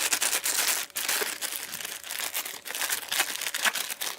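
A shipping packet being crinkled and torn open by hand: continuous rustling and crackling of the packaging, with short pauses.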